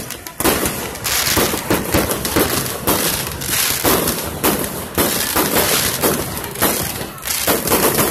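Fireworks going off in quick succession: sharp bangs roughly every half second to a second, with continuous crackling in between.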